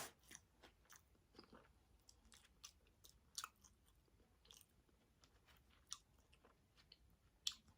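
Faint chewing of food: irregular soft mouth clicks and smacks at an uneven pace.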